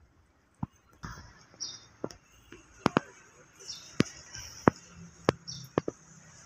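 Irregular sharp clicks and light knocks, a few close together and some a second or so apart. Short faint high chirps sound in the background.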